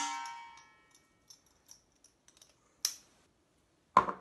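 A clink against a stainless steel mixing bowl that rings and fades over about half a second, followed by faint small ticks, a sharp click about three seconds in, and a louder knock near the end.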